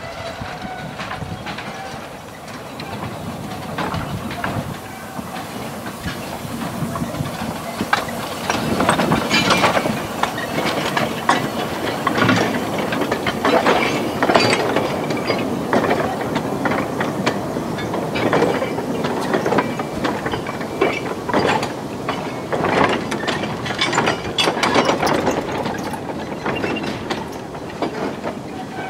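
Quarry Hunslet 0-4-0T narrow-gauge steam locomotive passing slowly with a train of wooden wagons: a busy run of irregular clanks and rattles from the wheels and wagons on the track. It grows louder about a third of the way in as the engine and wagons draw alongside.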